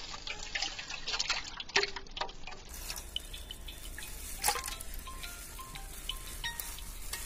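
Goat blood poured in a thin stream into a wide metal pan, splashing and dripping, with many short splats as clotted lumps of blood slide in.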